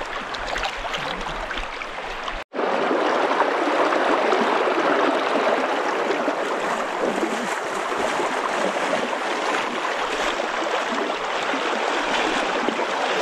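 Fast river current rushing steadily. The sound cuts out for an instant about two and a half seconds in.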